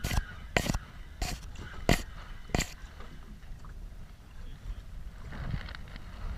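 A series of sharp knocks, about one every two-thirds of a second, that stop a little over halfway through, with a low wind rumble on the microphone.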